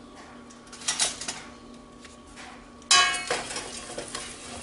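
Utensil knocking against a stainless-steel soup pot: a few light knocks about a second in, then one loud ringing clank about three seconds in, followed by stirring scrapes and clicks in the pot of diced onion and carrots. A faint steady hum runs underneath.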